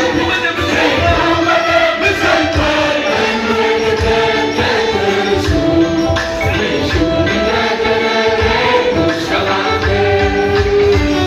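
Congregational singing by a group of voices over a steady beat of percussion and instruments, in the style of gospel praise and worship music.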